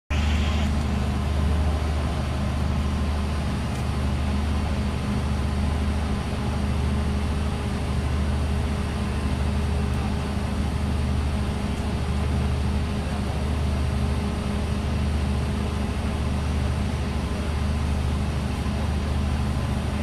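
Fire truck's diesel engine running steadily at idle close by, a constant low drone.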